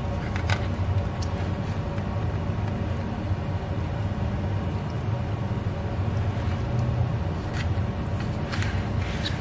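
A steady low background rumble, with a few short scrapes and squelches from a spoon scooping wet mashed dog food out of a stainless steel bowl into a foil pan, a few near the start and several near the end.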